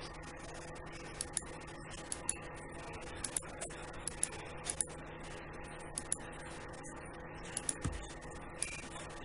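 Computer mouse button clicking at irregular intervals, single clicks and quick pairs every second or so, as anchor points are placed one by one along an outline. A steady low hum runs underneath.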